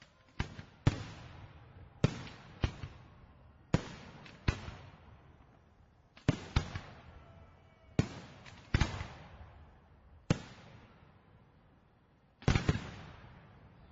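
Fireworks shells bursting overhead: about a dozen sharp bangs, some in quick pairs, each trailing off in a rolling echo, with a lull of about two seconds before a last burst near the end.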